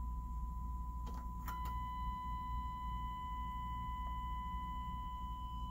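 A steady pure test tone playing through an Akai GX-635D reel-to-reel tape deck, with a low hum beneath. Front-panel switch clicks come about a second and a half in, after which fainter higher overtones sound along with the tone.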